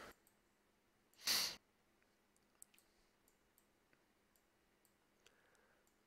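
Mostly quiet, with one short breath about a second in and a few faint clicks of a stylus tapping a touchscreen as numbers are handwritten.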